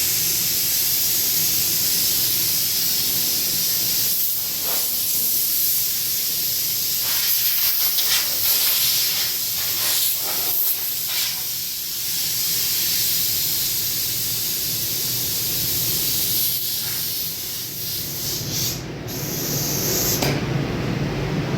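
Compressed-air paint spray gun spraying waterborne metallic basecoat onto a fender panel: a steady, loud air-and-paint hiss while the trigger is held, briefly let off near the end, then stopping about a second before the end.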